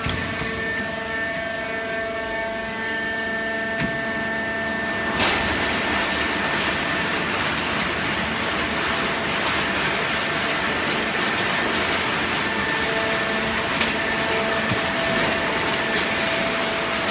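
Horizontal hydraulic baler for shredded paper running: a steady machine hum with a whine, joined about five seconds in by a louder, even rushing noise that holds on.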